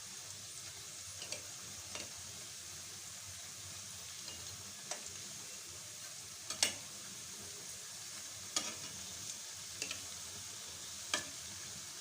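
Onion and gram-flour fritters (piyaju) frying in hot oil in a frying pan, a steady sizzle, with a few sharp knocks of a utensil against the pan as they are turned.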